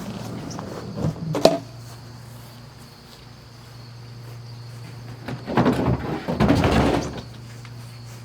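Sewing machines and their carrying cases being handled and moved: a couple of knocks and a sharp click about a second and a half in, then a stretch of scraping and rustling near the end.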